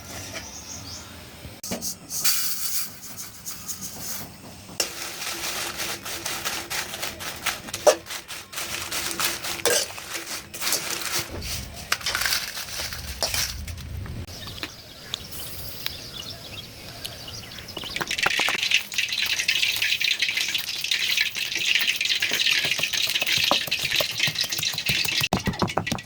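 Cooking sounds from pickle making: utensils knocking and scraping against a pot or bowl. A steady hiss comes in about two thirds of the way through and runs on, like oil sizzling or spiced mango pieces being tossed.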